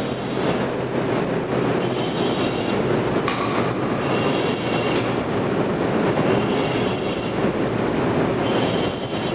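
Loud, steady industrial machinery noise with a hiss that swells and fades irregularly, and a sharp click about three seconds in.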